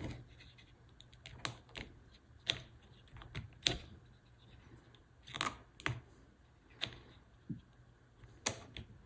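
About eight sharp clicks at irregular intervals from an N-scale snap-switch turnout being thrown back and forth with its push-button controller. Each throw is fired by the discharge of a single capacitor, and the switch is working.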